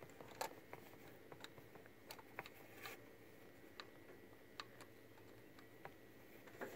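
Near silence with faint, scattered small clicks and ticks, about a dozen, as small metal choke parts are handled and fitted on a carburetor.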